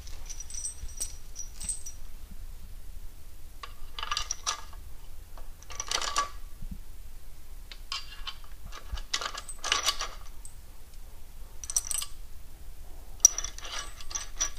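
Steel M16 bolt, centralising spacers and nut clinking and scraping against the lift's steel brackets as the bolt is pushed through and the nut is started by hand. The sound comes in several short spells of metal clinks a second or two apart, some with a light ring.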